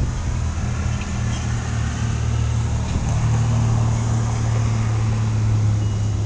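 Low, steady mechanical hum at a few fixed pitches, growing louder about three seconds in.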